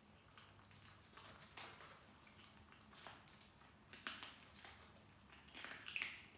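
Forty-day-old kittens crunching dry kibble from a plate as they are weaned onto dry food: faint, scattered crunches and clicks, with a few louder ones about four seconds in and near the end.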